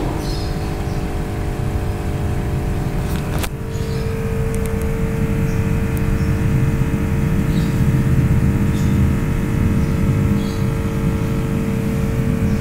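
A steady machine hum over a low rumble, with a sharp click about three and a half seconds in, after which one constant tone stands out more clearly.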